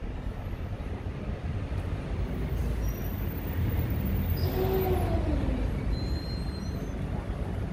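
City street traffic rumbling steadily. About four and a half seconds in, a passing vehicle's hum falls in pitch, and a few faint high squeaks follow near the end.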